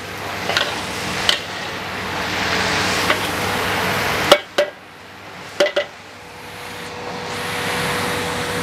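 Long beans stir-frying in a large wok: a sizzle that swells as the beans are tossed, dies down about four seconds in, then swells again, with a metal ladle clanking against the wok several times.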